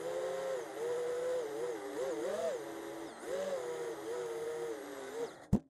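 Holybro Kopis II FPV racing quadcopter's brushless motors whining, the pitch rising and falling as the throttle changes. The sound cuts off suddenly with a click near the end.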